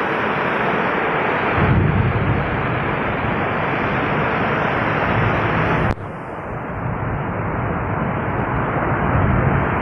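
Heavy rain pouring down in a storm, a loud, steady hiss. A low rumble joins in about a second and a half in, and the sound drops sharply for a moment about six seconds in before the rain carries on.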